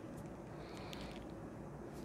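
Quiet room tone: a faint steady low hum with a few soft clicks.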